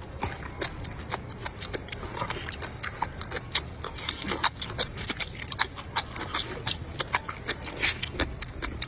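Close-up eating sounds: chewing and crunching of crisp shredded papaya, heard as many short, irregular crackles and clicks several times a second.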